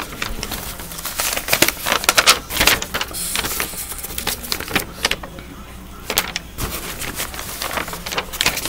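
Sheets of drawing paper rustling and crinkling as they are handled and swapped, a quick, irregular run of sharp crackles.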